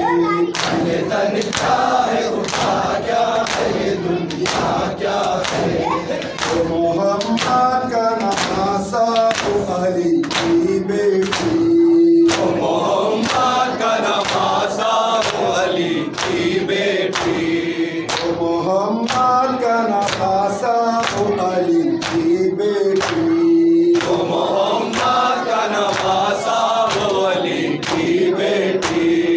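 A noha, an Urdu mourning lament, sung by a male reciter with a group of men chanting along, over a steady rhythm of sharp slaps of hands striking chests in matam, about two a second.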